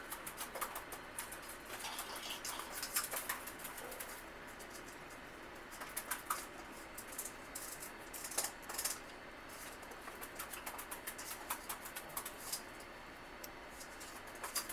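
Light, irregular clicking and scratching of fine silver wire being wrapped by hand around a soldered wire.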